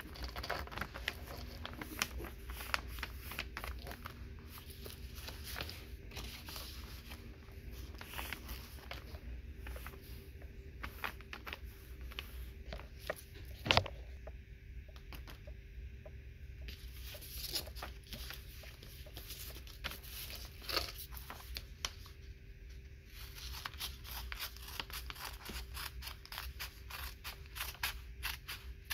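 Sheets of paper handled and rustled, with a sharp knock about halfway through, then scissors snipping through a paper bag along its dashed top edge near the end. A faint steady hum runs underneath.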